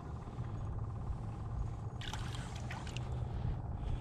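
Steady low rumble of wind buffeting the microphone on open ice, with a burst of clicking and scraping about two seconds in as a small perch is pulled up through the hole onto the ice.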